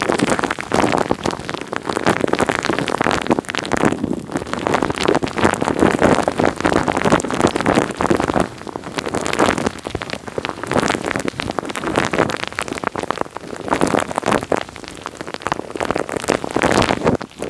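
Wet, sticky material squished and rubbed directly on a microphone: a dense crackle of small wet pops and clicks that swells and fades in waves.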